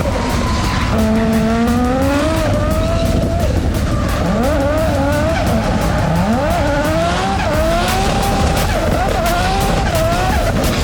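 Turbocharged Holden VS Commodore drift car's engine under throttle, heard from inside the car: the revs climb steadily for a couple of seconds, then rise and fall again and again with quick throttle stabs as the car is held sideways. Tyre squeal and skid noise run underneath.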